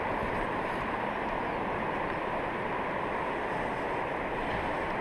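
Steady rush of fast river water through the Gaulfossen rapids.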